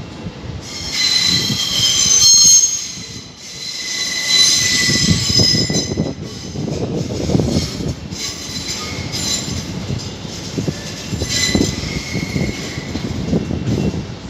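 A train running along the platform, its wheels squealing on the rails in high-pitched spells, loudest in the first few seconds, over a low rumble.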